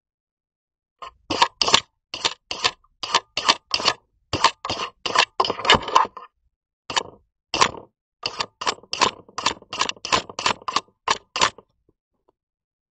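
Cat rubbing his face and fur against a security camera right at its microphone: a quick run of short rustling scrapes, about three a second, broken by a pause of about a second midway.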